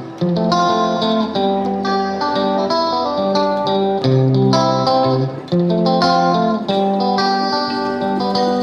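Background music: plucked guitar playing a melody over a bass line, with a note or chord change about every half second.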